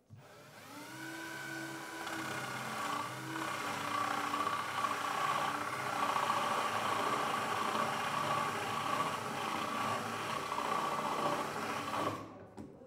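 Power drill boring into a wooden door's edge: the motor winds up to speed about half a second in, runs steadily under load for about twelve seconds, then cuts off suddenly near the end.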